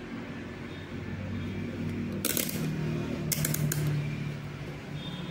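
Handling noise as the multimeter test leads are picked up and moved: two brief bursts of rustling and scraping, about two and three and a half seconds in, over a low steady hum.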